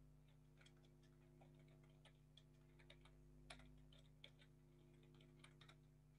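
Faint computer keyboard keystrokes: a scattering of small, irregular clicks over a low steady electrical hum.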